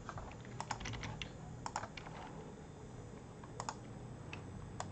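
Computer keyboard keystrokes, faint and scattered: a quick run of taps in the first two seconds, then a few single clicks.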